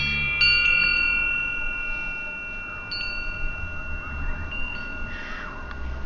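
Metal-tube wind chime ringing: a quick cluster of strikes in the first second, then single notes about three seconds in and near five seconds, each note ringing on for a long time.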